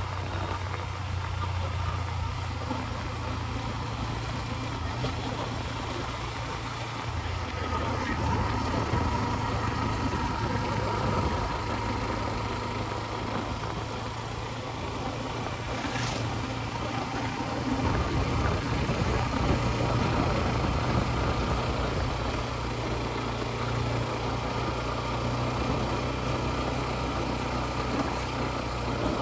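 A motorbike or scooter engine running steadily as it is ridden, with road and wind noise, and a single short click about halfway through.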